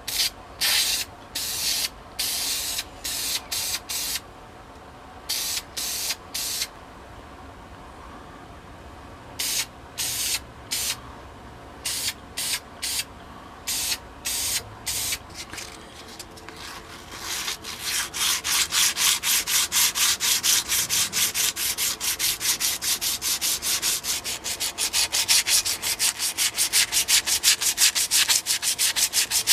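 Sandpaper rubbed by hand over a primed metal stapler handle. Over the second half come fast, even back-and-forth strokes, several a second. Before that, separate short strokes come with pauses between them.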